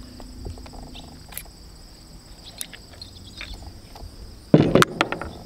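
Crickets chirring steadily, with a few faint clicks and, about four and a half seconds in, a quick cluster of sharp metallic clicks from a small .22 single-action revolver being worked by hand, its cylinder timing faulty.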